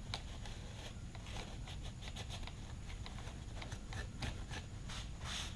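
Faint, irregular clicks and light scrapes of small plastic trimmer parts being handled, over a steady low hum.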